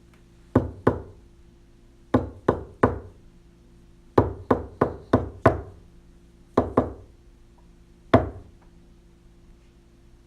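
Knocking on a wooden surface: sharp raps in quick groups of two, then three, then five, then two, then a single knock, over a faint steady hum.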